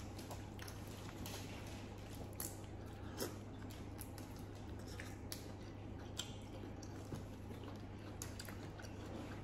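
Quiet wet chewing and biting of boiled shrimp and crab, with scattered small clicks and crackles of shells being handled, over a steady low hum.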